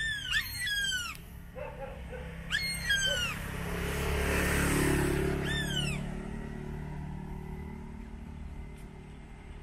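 A falconer's trained hawk screaming: four short, high calls, each falling in pitch and lasting about half a second. A broad rush of noise swells and fades around the middle.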